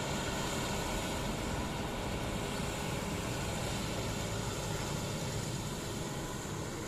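Heavy diesel machinery running steadily, a constant engine noise with a hiss over it.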